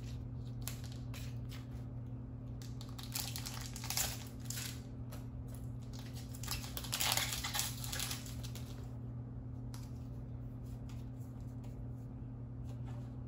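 Foil trading-card booster pack wrapper crinkling as it is handled and torn open, in short crackly bursts that are loudest about three to four seconds in and again around seven seconds in, over a steady low hum.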